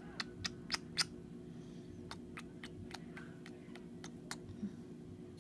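A quick run of four sharp clicks, each louder than the last, in the first second, then a looser run of softer clicks about two seconds in, over a steady low hum.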